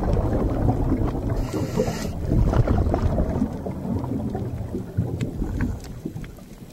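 Underwater ambience: a low, rumbling wash of water noise with scattered crackling clicks and a brief hiss about one and a half seconds in, fading near the end.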